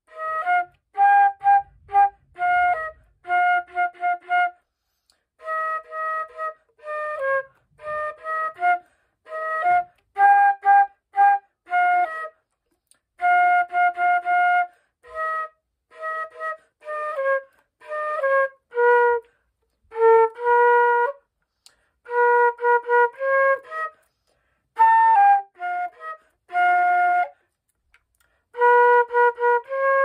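Solo concert flute playing a melody in short phrases of detached, often repeated notes, with brief pauses between phrases.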